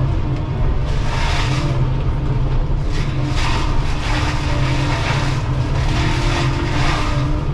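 Excavator engine and hydraulics running under steady load while a Shearex VM-40 mulcher head spins, with a constant low drone. Several bursts of shredding noise come every second or two as the drum chews through brush and wood.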